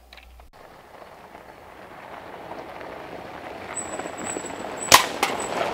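ATV coming along a gravel driveway, growing steadily louder as it approaches, its tyres crunching on the gravel; a sharp knock about five seconds in.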